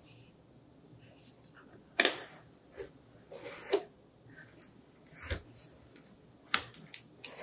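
Cardboard box being handled and its lid lifted off: cardboard scrapes and rubs, a dull knock about five seconds in, and a few sharp clicks near the end.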